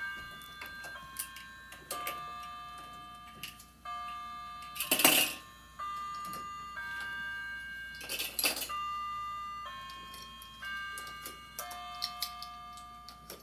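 A slow melody of bell-like chiming notes, changing about once a second, with a few sharp clicks and two louder, short clattering noises about five and eight and a half seconds in.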